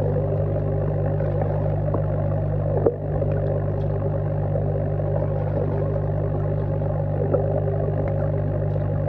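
Steady electric pump hum picked up underwater, with several fixed tones and a light haze of noise over it, the sound of the tank's aeration running. A single soft knock about three seconds in.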